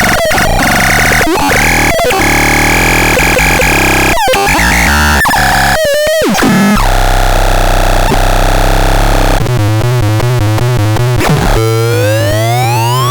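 Loud, harsh electronic synthesizer sounds, noisy and chaotic, changing abruptly every second or two. Near the end a tone sweeps steadily upward in pitch.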